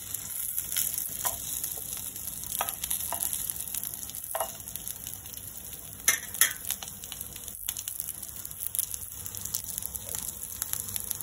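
Quinoa cutlets shallow-frying in about two spoons of oil in a non-stick pan, a steady sizzle. A few short clicks and scrapes of a steel spatula cut through it, the loudest about six seconds in.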